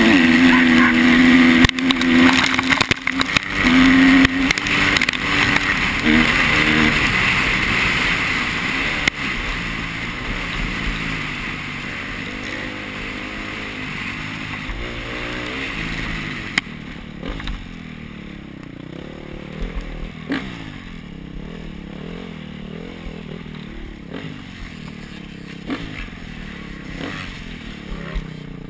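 Dirt bike engine revving hard through the gears, loudest in the first few seconds, then running lower and rougher on a bumpy trail, with scattered knocks and clatter from the bike hitting roots and ruts.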